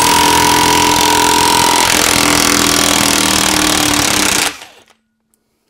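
Cordless DeWalt impact wrench hammering loudly for about four and a half seconds, then stopping abruptly, as it breaks loose the high-torque, Loctited flywheel nut on the crankshaft of a Ducati two-valve engine.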